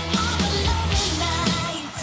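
Live rock-pop band music with a woman singing a wavering melody into a microphone over a steady bass line and regular drum hits.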